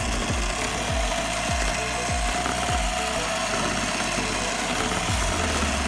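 Electric hand mixer running at a steady speed, its beaters churning through thick cream cheese batter, with a constant motor whine over a rushing whirr.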